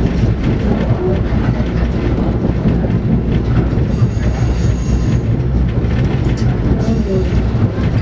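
Passenger train rolling along the track, heard from inside the coach: a steady low rumble of wheels on rails, with occasional clicks.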